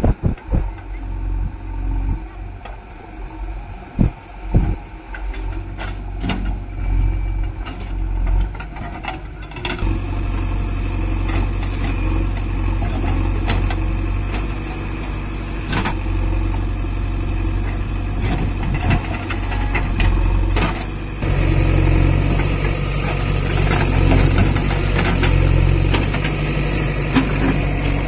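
Diesel engine of heavy earth-moving machinery running, with scattered knocks and clatter in the first part. The engine sound steps up louder and fuller about ten seconds in and again about twenty seconds in.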